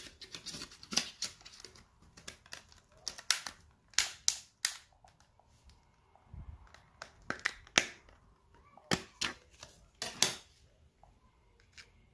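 Plastic back cover of a Vodafone Android phone being pried and snapped off by hand: a run of sharp, irregular clicks and snaps, with a dull knock about six seconds in.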